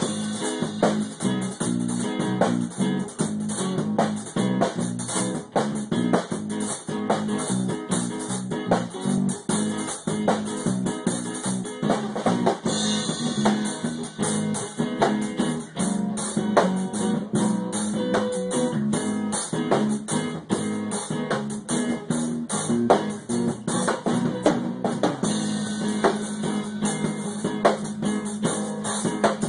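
Background music: a guitar-driven track with a drum kit keeping a steady beat.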